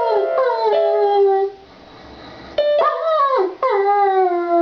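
German Shepherd howling in long notes that fall in pitch: one howl dies away about a second and a half in, and after a short pause a second howl rises, then falls and is held. Held notes from a Kawai electronic keyboard sound under the howls where the dog's chin presses the keys.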